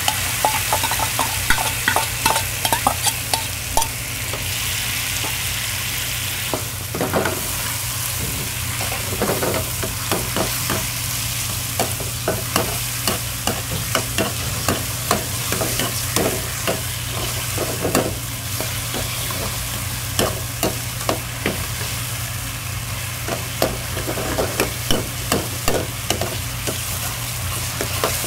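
Food sizzling in a hot pan while a metal utensil repeatedly clinks, knocks and scrapes against it in an irregular stirring rhythm, over a steady low hum.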